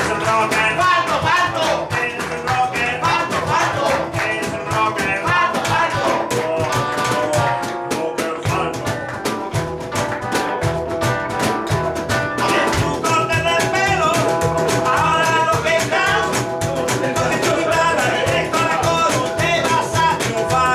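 Live rock and roll song: a man sings into a microphone over a strummed hollow-body electric guitar, with a short guitar passage and little singing around the middle.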